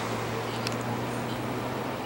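Boeing 737-800's CFM56-7B jet engines at takeoff power, heard from a distance as an even rushing roar with a steady low hum underneath.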